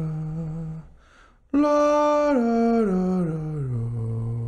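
A man singing vocal warm-up scales in a light, thin 'Mickey Mouse' voice: a descending scale ends about a second in, a quick breath, then another scale steps down note by note and holds its bottom note near the end.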